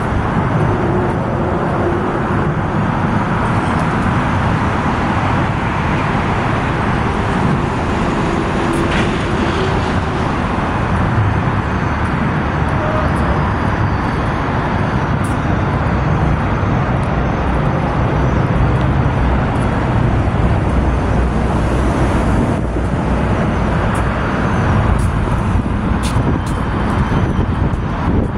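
Steady road traffic noise: a constant low rumble and hiss with no single vehicle standing out.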